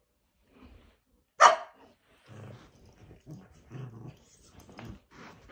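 A dog gives one sharp bark about a second and a half in, followed by several low growls: play growling between a golden retriever and a Cavalier King Charles Spaniel puppy.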